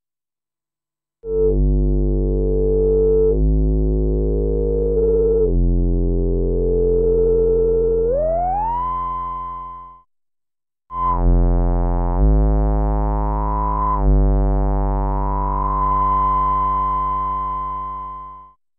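Eurorack modular synthesizer tones shaped by a Make Noise Contour envelope. The long, buzzy notes each start sharply and fade slowly, and are re-struck every two seconds or so. A bright overtone glides up partway through, and the sound breaks off briefly about ten seconds in before a second run of notes.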